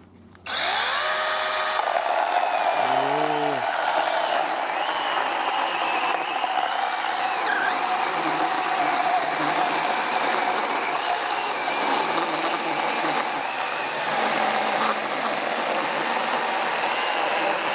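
Cordless 21 V mini electric chainsaw starting about half a second in with a short rising whine, then cutting steadily through a log about 7 inches thick, the motor and chain running under load without bogging down.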